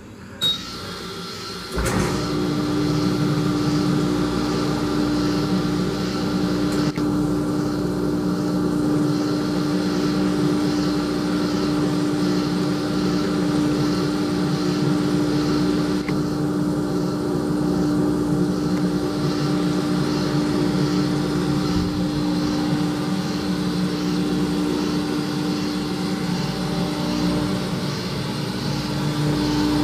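Hobart LXiH undercounter dishwasher starting up: a short sharp sound, then about two seconds in its motor comes on. It then runs steadily with a strong even hum over a rushing noise.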